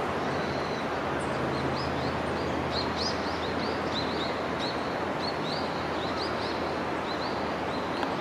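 A small bird chirping over and over in short, quick calls, two or three a second, over a steady rushing background noise.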